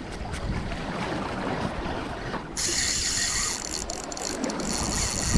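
Shimano Saragosa 5000 spinning reel under load: the drag starts buzzing about two and a half seconds in and keeps going for about three seconds as line is pulled off. Underneath are wind and water lapping on rocks.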